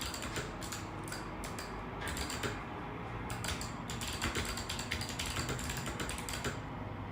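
Typing on a mechanical keyboard fitted with Kailh × Chosfox Arctic Fox switches: fast runs of key clicks, with a brief lull near the end.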